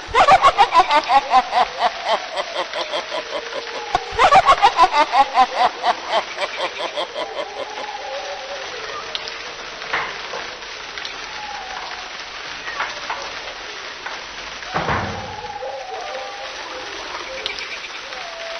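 Horror sound effect: two bursts of rapid, staccato cackling laughter, each falling in pitch and fading over a few seconds. Then a steady hissing ambience with a few faint clicks and a low thud about 15 seconds in.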